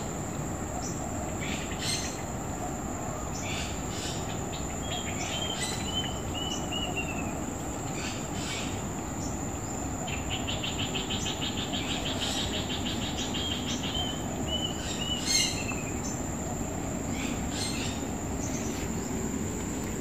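Outdoor insect and bird chorus: a steady high-pitched insect drone throughout, with birds giving series of short repeated chirps and a fast trill partway through, over a steady low background hum of noise.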